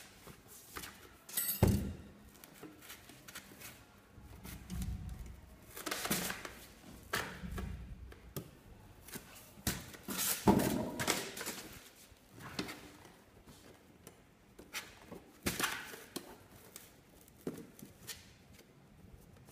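Handling noise from assembling a collapsible fabric lampshade: scattered clicks and knocks as its metal wire ribs are fitted into the rims, with rustling of the shade's fabric as it is turned.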